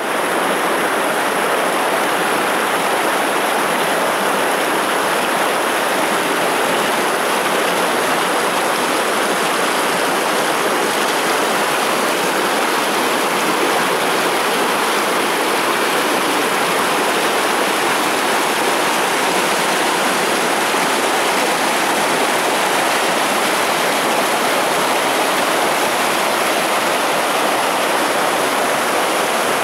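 Stream water rushing and splashing over boulders in small cascades, a steady, even rush.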